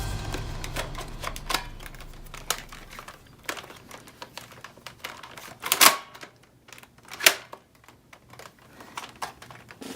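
Scattered light clicks and taps of plastic toy blasters being handled, with two louder sharp snaps about six and seven seconds in.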